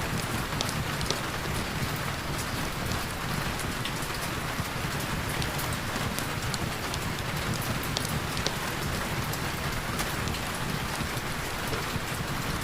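Heavy rain falling steadily, a dense even hiss of rain on surfaces with scattered sharp drop ticks.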